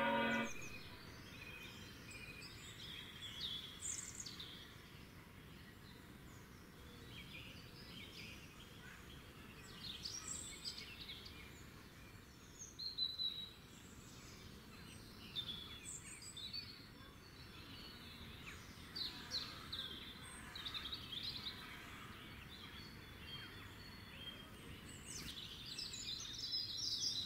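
Outdoor ambience of birds chirping: many short, high calls scattered throughout over a steady background hiss.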